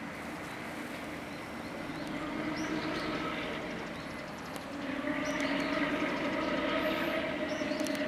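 A vehicle's steady droning hum with several held tones, getting louder about five seconds in.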